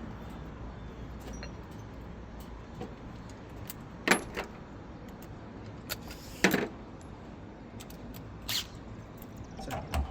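Three sharp metallic clinks a couple of seconds apart, from metal parts and a tool being handled while bolting up a Speed Queen washer's transmission and brake assembly, over a steady low rumble.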